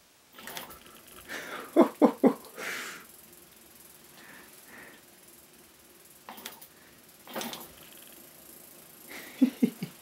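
Bafang mid-drive e-bike motor running on the throttle, spinning the bike's rear wheel up to about 13 km/h. A few short loud bursts stand out about two seconds in and again near the end.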